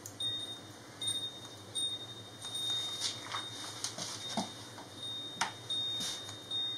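Hairdressing scissors snipping through hair several times, short sharp metallic snips with the sharpest about five seconds in, over a thin high ringing tone that breaks on and off.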